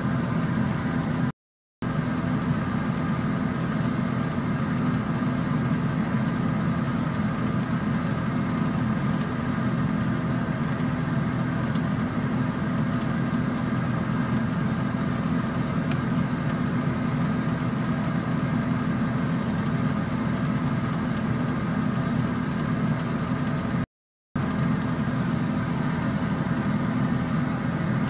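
A steady low engine hum, like a vehicle idling, that cuts out to silence twice for a moment.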